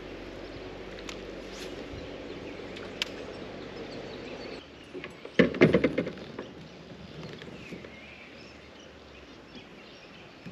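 A quick cluster of sharp knocks and clicks from fishing gear handled on a kayak, the loudest part, a little past the middle, over a steady outdoor background. Faint birdsong follows.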